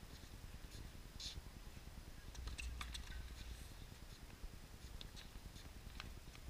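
Quiet outdoor ambience on a tennis court: a low rumble of wind on the microphone, louder around the middle, with scattered faint ticks and taps.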